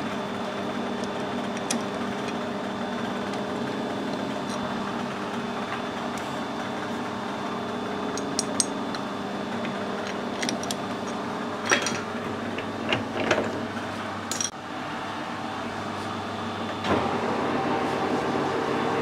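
Metal lathe workshop: a steady machine hum, with sharp metallic clicks and knocks between about 8 and 15 seconds in as the workpiece is clamped in the chuck and the chuck key is turned. Near the end there is a thump and the hum gets louder as the lathe spindle starts up.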